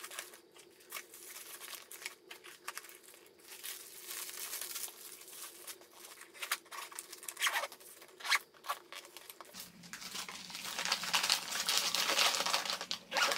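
Plastic bags and packaging rustling and crinkling as items are pushed into a soft fabric carry-on bag, with scattered scrapes and light knocks; the handling gets busier over the last few seconds.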